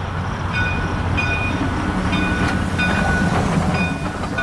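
HO-scale model steam locomotive and its cars running along the track past the microphone: a low rumble with a light click repeating a little under twice a second, growing louder as the train comes close and easing off near the end.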